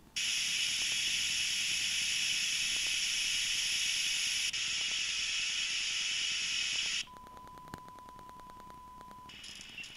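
Television static: a steady white-noise hiss that cuts off suddenly about seven seconds in. A quieter, steady single-pitched test-pattern beep follows for about two seconds, the tone that goes with colour bars.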